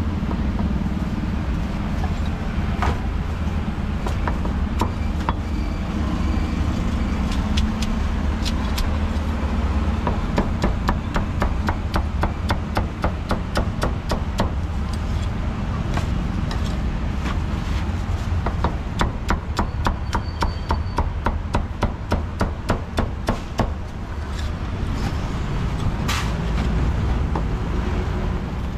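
Steel cleaver chopping crispy roast pork belly on a thick round wooden chopping block: a long run of quick, even strokes with a few single chops before and after. Passing road traffic rumbles steadily underneath.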